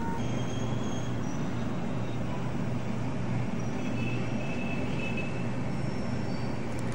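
Steady low rumble of city traffic far below, with a few brief high-pitched squeals scattered through it.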